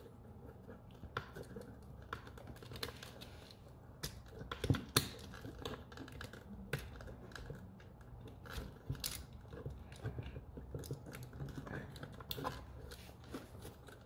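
Irregular small clicks and taps of hands handling a wall outlet and bending its copper ground wire into place by hand.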